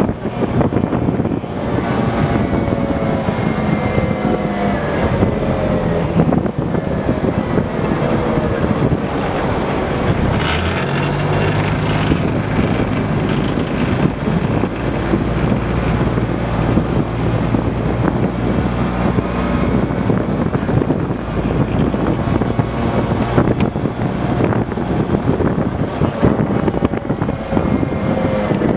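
Type 96 wheeled armoured personnel carrier on the move, heard from on top of the hull: its diesel engine and drivetrain run loud and steady under a haze of road noise. The engine note changes about ten seconds in.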